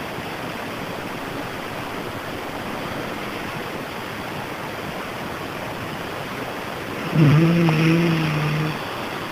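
Steady rushing background noise, then about seven seconds in a sleeping person's low, steady-pitched moan that lasts about a second and a half.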